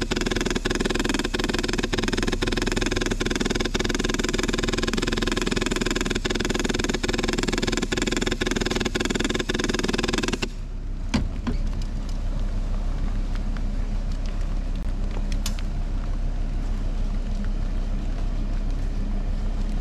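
Vehicle engine and road rumble heard from inside a steel-walled rear compartment, with a sharp click repeating about twice a second. About halfway through the sound turns duller and a little quieter, with only a couple of clicks.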